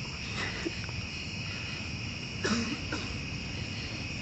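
Steady chorus of crickets chirping, with one brief soft noise about two and a half seconds in.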